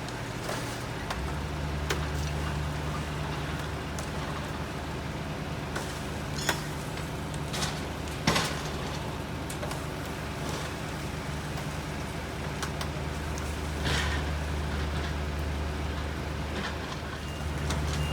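Crane's engine running steadily with a low hum that sets in about a second in. A few sharp knocks come through, the loudest about eight seconds in.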